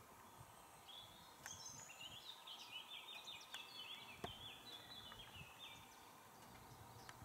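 A songbird singing faintly: a quick run of short high notes lasting about four seconds, starting about a second and a half in, with a few faint clicks.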